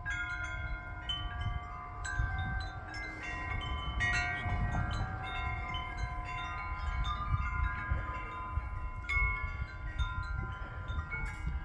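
Home-made tubular wind chimes cut from metal light stand poles, struck irregularly by a light breeze, several pitched tones ringing and overlapping. Wind rumbles on the microphone underneath.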